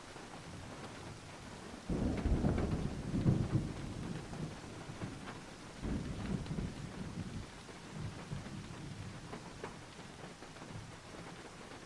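Rain falling on a tin roof, a steady patter with scattered drop ticks. Thunder rolls in suddenly about two seconds in as a deep rumble, and a second, weaker rumble follows about halfway through and fades.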